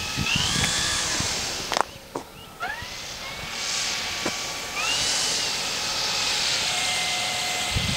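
Electric motor of a quarter-scale RC P-40 Warhawk model whining as the throttle is opened to taxi, the pitch rising twice, with the propeller rushing over it. The motor drops out briefly about two seconds in.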